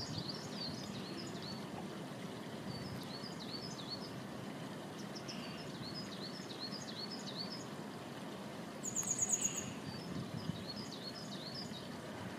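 Small songbirds calling: several runs of short, high, hooked notes, and a loud, fast, high trill lasting about half a second around nine seconds in, over a steady low rushing background.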